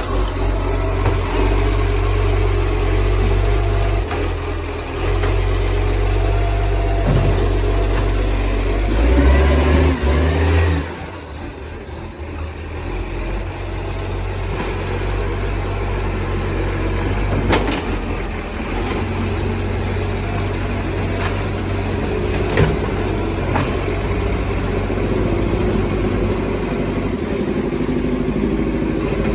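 Diesel engine of a flat-faced Acco-cab garbage truck running loud through a massive exhaust leak. It revs up about nine seconds in, drops back sharply about two seconds later, then runs on steadily, with a couple of sharp knocks in the second half.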